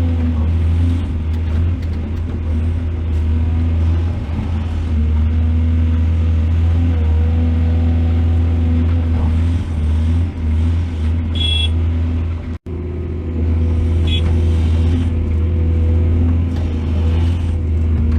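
Heavy diesel engine of an excavator running steadily under load, with a strong low hum. Two short high-pitched squeals come around the middle, and the sound drops out for an instant about two-thirds through.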